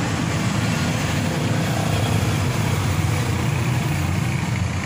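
Motor vehicle engine running nearby: a steady low rumble with an even hiss over it, unchanging throughout.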